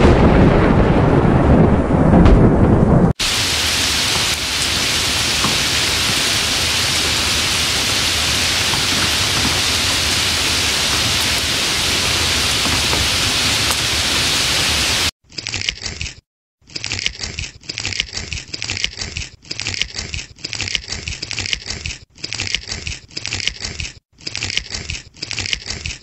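Thunder rumbling for about three seconds, then steady heavy rain. Some fifteen seconds in, the rain gives way to a higher-pitched, choppy sound broken into short pieces a little more than once a second.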